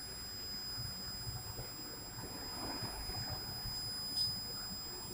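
Low, steady rumble of a Line 6 Finch West light rail train, with a thin, steady high-pitched tone throughout and a short click about four seconds in.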